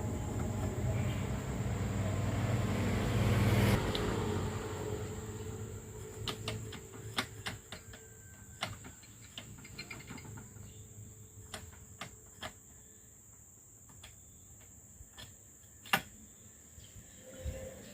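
A machine runs with a steady low hum, then cuts off abruptly about four seconds in. After that come scattered metal clinks and knocks of tools and parts being handled, with one sharp knock near the end.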